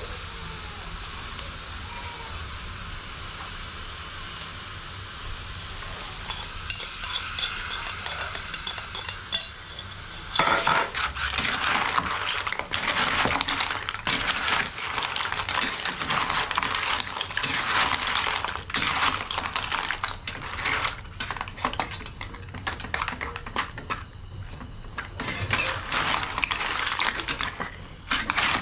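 Blood cockles sizzling in their shells in a metal wok of tamarind sauce. From about ten seconds in, the shells clatter and scrape against the wok as they are stirred and tossed with a wooden spatula and a metal ladle.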